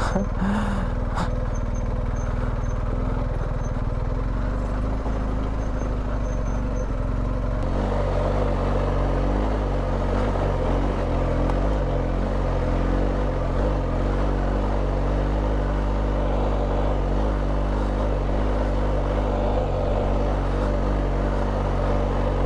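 BMW R1250GS boxer-twin motorcycle engine running at low, steady revs on a steep off-road descent, its note growing fuller about seven or eight seconds in. A few light knocks in the first second.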